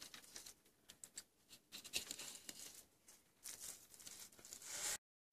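Faint, scattered crackling and small clicks of a fillet knife cutting along a walleye's back and of hands handling the wet fish on a wooden cutting board.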